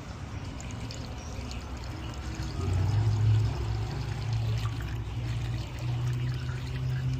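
Fresh motor oil pouring steadily into the engine during an oil change.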